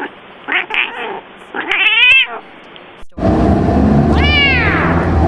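Domestic cat meowing: a couple of short calls, then a longer wavering meow about two seconds in. About three seconds in the recording changes, and a single meow rising and falling in pitch sounds over a low steady hum.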